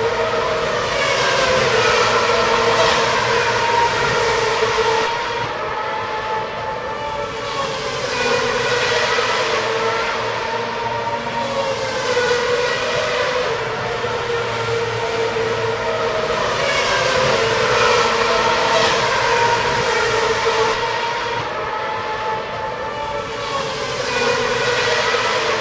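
Racing car engines at high revs passing by, in repeated swells of loudness a few seconds apart, the engine pitch falling as each goes past.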